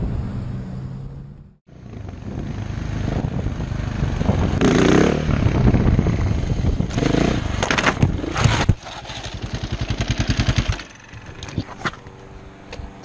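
Motorcycle engine revving during a wheelie, with loud bursts of clatter as the bike comes down and crashes. The engine then pulses unevenly for a couple of seconds and stops, followed by light scattered clicks.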